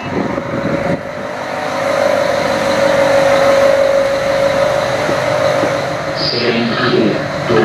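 Diesel railcar's engine running, heard inside the carriage: a steady drone that swells about a second and a half in and eases off again after about five seconds.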